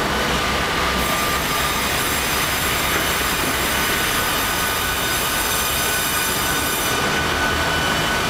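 Ustunkarli UHM_120_H_T tandem vertical log bandsaw cutting a log as the hydraulic carriage carries it through the blades: a steady loud machine noise, with a high whine that sets in about a second in and fades near the end as the cut finishes.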